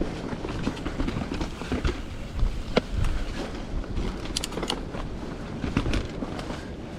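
Mountain bike riding over a bumpy trail: a steady rush of tyre noise with scattered sharp clicks, knocks and rattles from the bike as it goes over the rough ground.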